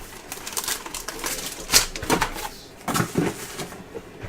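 Trading cards and foil packs being handled: irregular rustling, tapping and snapping of card stock and wrapper, with a few short low hums about two and three seconds in.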